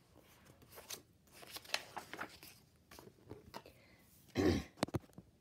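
Picture-book page being turned: paper rustling and crinkling in short scattered bursts, with a louder thump about four and a half seconds in.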